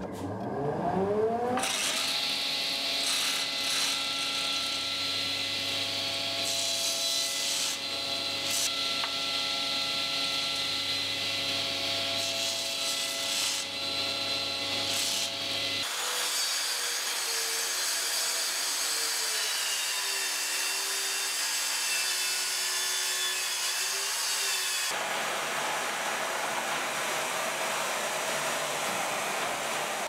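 Woodworking power saws cutting wood. A saw motor spins up about a second in and runs with a steady hum while cutting a board. About halfway through the sound changes abruptly to a different saw with a wavering tone. Near the end it changes again to a track saw cutting along its rail.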